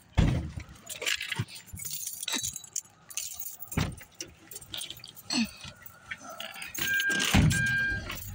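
Car keys jangling, with clicks, rustles and two dull thumps from handling inside a car. Near the end the car's electronic chime beeps twice.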